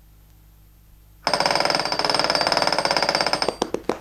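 Cartoon sound effect of a cogwheel winch ratcheting: a fast mechanical rattling clatter starts about a second in and slows into separate clicks near the end, as the gear spins and runs down.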